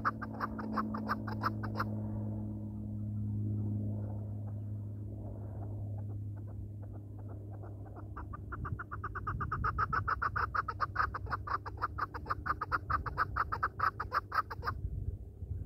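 Chukar partridge calling: a rapid run of chuk notes for the first couple of seconds, then a longer bout from about eight seconds in that stops shortly before the end.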